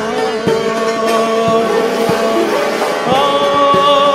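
Persian traditional music: sustained, wavering melody notes over regular short struck notes. The melody moves to new, higher notes about three seconds in.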